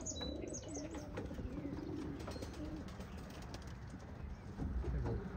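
Racing pigeons cooing, a low warbling coo for the first two seconds or so, with a few quick high chirps from another bird at the start.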